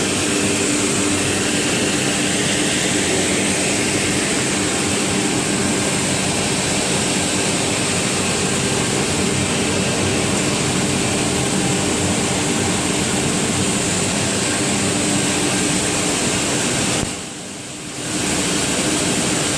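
Redwood RW-6132Z sliding-table panel saw running, its motor and spinning blade giving a loud steady whine and hum. The noise drops off for about a second near the end, then comes back.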